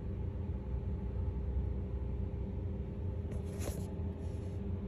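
Steady low background rumble with a faint constant hum, and a brief soft rustle about three and a half seconds in.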